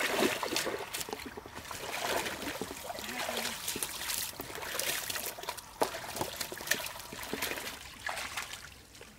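Pond water splashing and trickling, with many irregular short, sharp splashes and drips.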